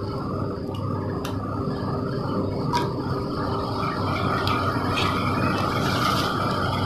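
Hot oil in a kadai sizzling with scattered crackles and pops, the sizzle getting stronger from about halfway through as two dried red chillies fry in it for a tadka. A steady low hum runs underneath.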